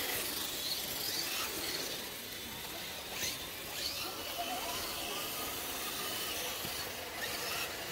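Steady hiss of noise with a few faint, brief voice fragments.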